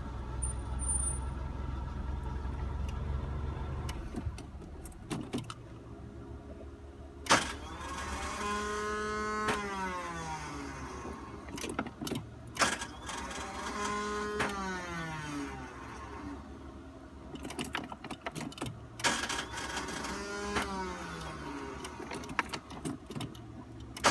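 Renault Clio 1.4 engine idling, then stopping about four seconds in. After that, three times, a sharp click is followed by an electric whine that falls in pitch over about two seconds, and the engine does not catch: the intermittent no-start.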